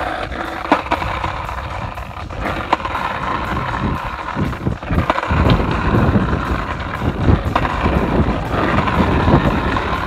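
Small hard wheels rolling over rough, cracked asphalt: a steady gritty rumble with occasional sharp clicks.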